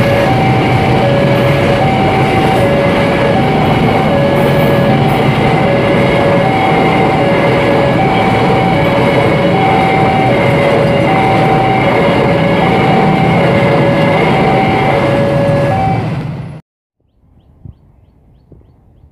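Diesel-hauled container freight train running past with a steady loud rumble. Over it, a two-tone signal alternates high and low about every 1.3 seconds. The sound cuts off abruptly near the end.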